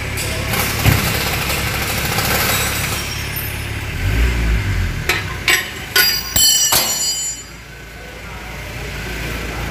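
Several sharp metallic clinks, each ringing briefly, from a steel ring spanner coming off the oil drain plug and being handled after tightening. They follow a dull knock about four seconds in, over a steady low background hum.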